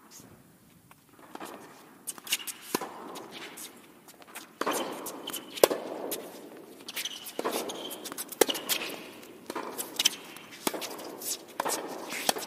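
Tennis rally on an indoor hard court: racquets striking the ball and the ball bouncing, sharp pops every second or two that echo under the dome, with footsteps and shoe squeaks on the court between shots.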